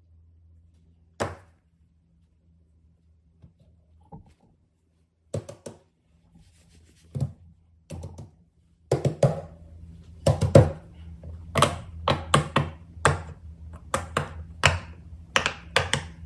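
Fidget toys being handled: a few separate taps and knocks, then from about nine seconds in a quick run of them, over a faint steady low hum.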